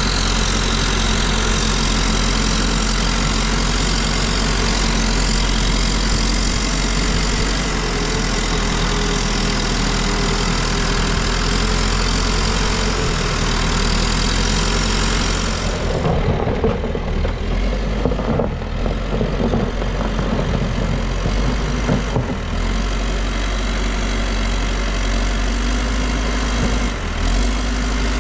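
Diesel engine of a New Holland backhoe loader running steadily; a little past halfway the sound turns uneven for several seconds, with irregular knocks, then settles back to a steady run.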